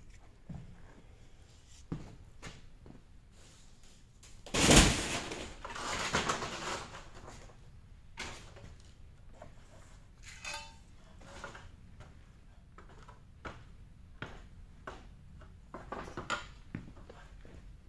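Work noise: scattered knocks, clunks and clicks as a man climbs a stepladder and handles street-sweeper brush parts, with one louder rustling clatter about five seconds in.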